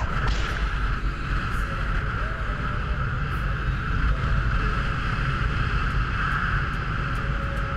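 Wind rushing over a hang glider's camera microphone at flying speed: a heavy, steady buffeting rumble with a constant hiss.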